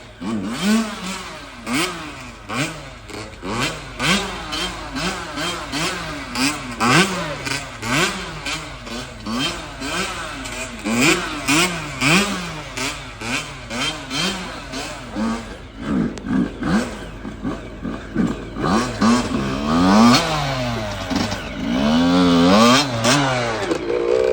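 Two-stroke motorcycle engine revved hard in quick repeated blips, its pitch sweeping up and dropping about once a second, then held at high revs for a couple of seconds near the end.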